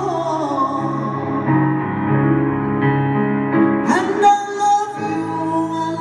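Live piano ballad in a large arena: sustained piano chords with a woman singing, with a sweeping sung note about four seconds in. Recorded from far back in the hall, so the sound is echoing.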